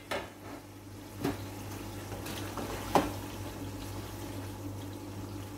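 Chicken, potato and capsicum curry bubbling in a wok while a spatula stirs it, with a sharp knock of the spatula against the pan about three seconds in. A low steady hum runs underneath.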